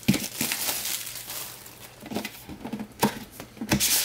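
Cellophane shrink wrap crinkling as it is stripped off a cardboard trading-card box, then the box being opened and handled, with scattered taps and two sharp knocks near the end.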